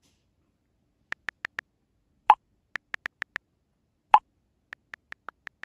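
Three runs of short, light clicks, four to six each at about six a second, with a single louder pop after each of the first two runs, against silence.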